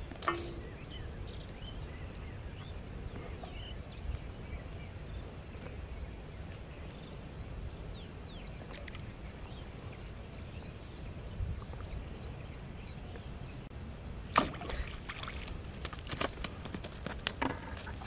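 Low wind rumble on the microphone at open water, with a cluster of sharp clicks and taps from about fourteen seconds in.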